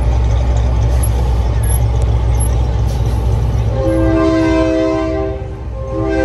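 Semi truck's diesel engine rumbling as it rolls slowly past, then a loud multi-note train-style air horn blast held about a second and a half from about four seconds in, with a second short blast near the end.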